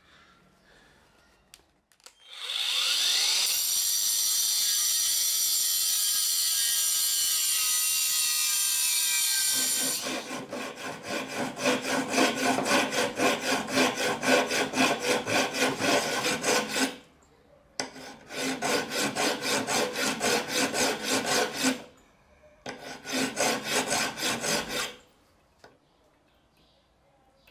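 A small motor spins up with a rising whine and runs steadily for several seconds, then stops. Then a flat hand file rasps in rapid back-and-forth strokes across the end of a 12 mm steel bolt, in three runs with short pauses.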